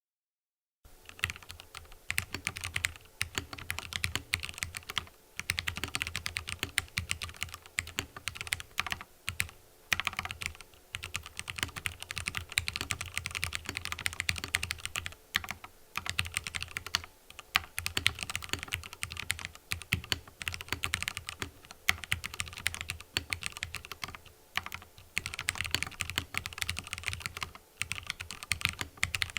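Continuous typing on an Mstone mechanical keyboard with fully lubricated Cherry MX Red (45 g linear) switches. A dense run of keystrokes starts about a second in and is broken only by a few brief pauses.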